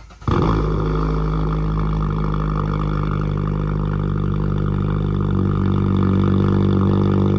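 Loud, steady buzzing alert tone with many overtones, starting abruptly just after the start and holding level.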